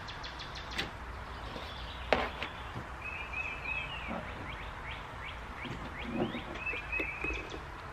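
Birds chirping in short repeated runs of high notes over a steady low background hum, with two sharp clicks in the first couple of seconds.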